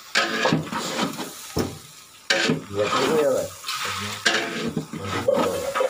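Food sizzling and being stirred in a large steel cooking pot, with several scrapes and knocks of a utensil against the pot.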